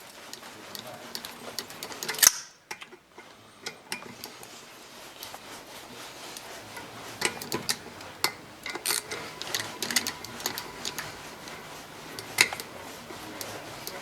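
Hand tools and metal parts clicking and clinking at irregular intervals during work on a dirt bike, with one sharp metallic knock about two seconds in and a busier run of clicks in the middle.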